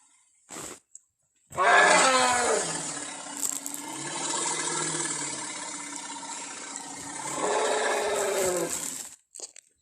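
Elephant call: one long, pitched roar of about seven and a half seconds. It starts loud with a falling pitch, holds, and swells again near the end.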